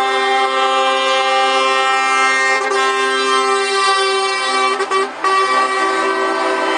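Truck air horns sounding a loud, steady multi-note chord, broken off briefly about five seconds in and then sounded again.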